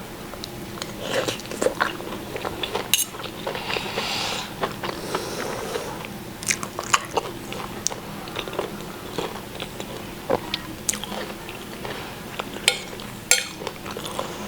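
A person chewing and biting food close to the microphone: irregular crisp clicks and crunches with wet mouth sounds, as in a mukbang eating show.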